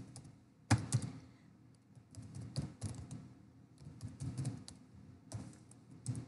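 Typing on a computer keyboard: several short runs of quick key clicks with brief pauses between, the loudest keystroke a little under a second in.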